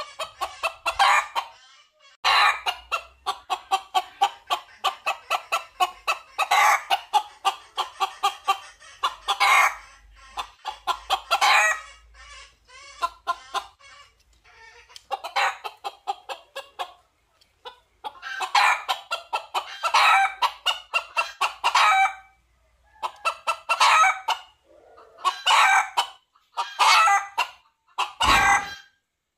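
Red junglefowl calling for a hen: quick runs of short clucking notes, one run every second or two, with a brief dull thump near the end.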